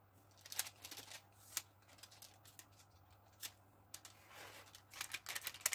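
Faint, irregular scraping and light taps of a utensil spreading sponge-cake batter across a paper-lined baking tray, with soft swishing strokes near the end.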